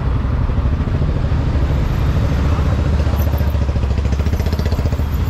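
A BMW motorcycle's engine idling steadily with an even low pulsing, the bike stopped in traffic among other idling scooters and cars.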